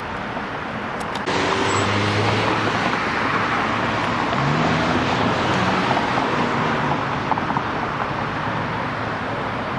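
Road traffic noise: cars running on nearby streets, a steady rush with engine hum from passing vehicles, jumping louder about a second in.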